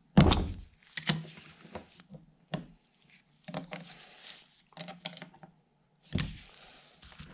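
Screwdrivers clicking and scraping against a steel C-clip and the cast spindle housing as the clip is pried loose. Two heavy thunks stand out, the loudest just after the start and another about six seconds in.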